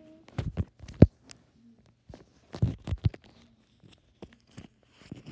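A series of short knocks and taps, like objects being handled and set down, with the loudest cluster about a second in, another near three seconds, and lighter taps after.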